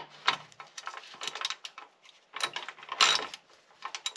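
Socket ratchet clicking in several short runs as it is swung back and forth undoing a rusty exhaust silencer mounting bolt.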